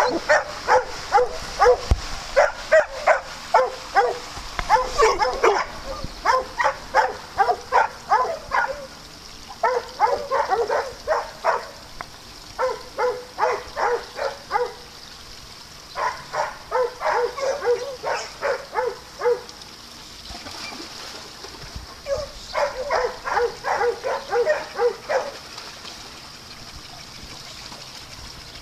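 A dog barking in quick repeated series, about three barks a second, in bouts of a few seconds with short pauses between them. The barking dies away near the end.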